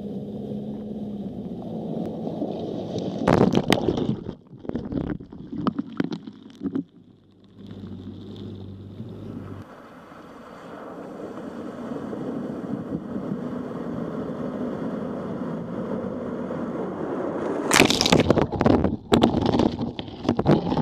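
Four-wheel-drive vehicles driving through a shallow creek crossing: engines running, with loud bursts of splashing water at about three to six seconds in and again near the end, and a vehicle's engine growing louder as it approaches in between.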